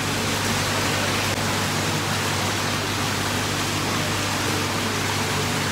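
Steady rushing noise with a low hum underneath: the constant ambience of an indoor swimming pool.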